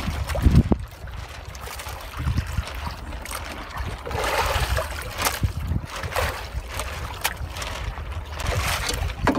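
Sea water lapping and trickling against the hull of a small wooden outrigger boat, with low rumble and a few brief swells of rustling wash and small knocks from handling.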